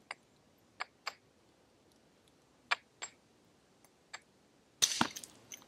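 A hammer stone knapping a prepared stone core. A few light, sharp clicks of stone on stone come first, then a hard strike about five seconds in that knocks off a long blade flake, with a short clatter after it.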